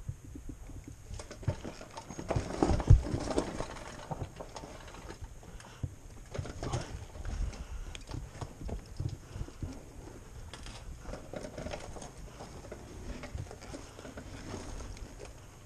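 Dirt bike being walked down a rocky trail with its engine off: irregular footsteps, scuffs and knocks of the tyres and suspension over rock and loose stones, with one heavy thump about three seconds in.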